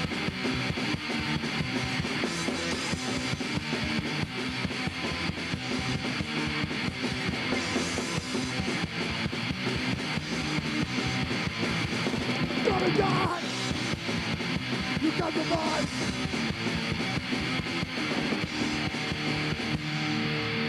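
Punk rock band playing, with electric guitar.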